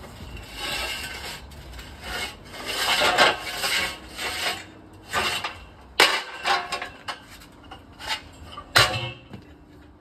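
Long steel shoring props being handled: scraping and rubbing in the first half, then several sharp knocks in the second half, the loudest near the end.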